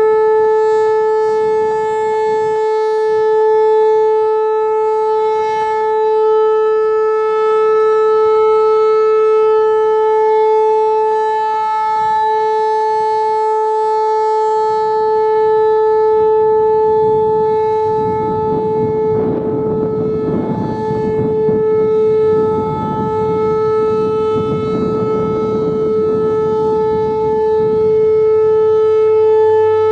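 Whelen Vortex R-4 rotating electronic warning siren sounding one steady, unchanging tone, swelling gently in volume as it rotates. The tone has a few brief catches, the 'clips' typical of its 2020-era controller. A rushing noise swells and fades behind it in the second half.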